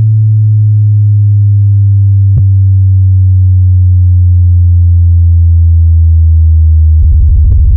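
Loud, deep synthesized bass test tone, held and slowly falling in pitch, with a single click a couple of seconds in. Near the end it turns into a fast pulsing bass.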